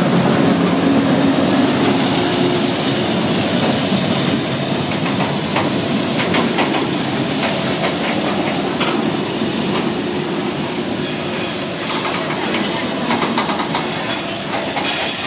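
Norfolk Southern diesel freight train passing close by. The locomotives' engines drone through the first few seconds, then the freight cars' wheels rumble and click over the rail joints. Wheels squeal and screech on the curve near the end.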